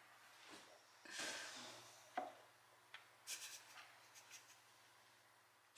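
Faint rustling and light scratching of a kitten shifting about in a small box, with one sharp tap a little after two seconds in and a few faint ticks after it.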